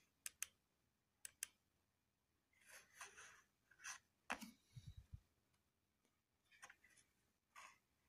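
Faint computer clicking at a laptop: two quick double clicks in the first second and a half, then scattered softer clicks and a few light knocks.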